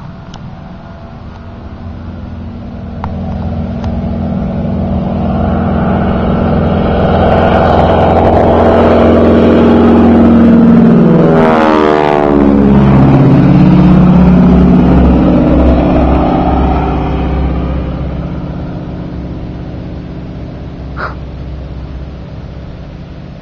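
North American Harvard's Pratt & Whitney R-1340 Wasp radial engine at full power as the trainer climbs out from a touch-and-go. It grows louder as it approaches, passes overhead about twelve seconds in with a sharp drop in pitch, then fades as it climbs away.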